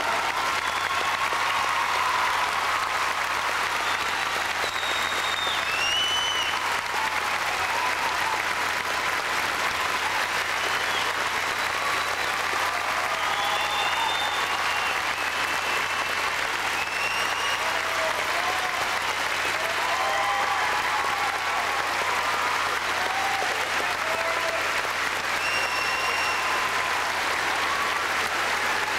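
Audience applauding steadily, with short high cries and whistles rising above the clapping now and then.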